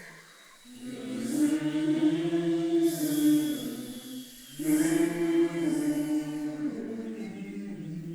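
A cappella choir singing long held notes in two phrases, with a brief break about four seconds in.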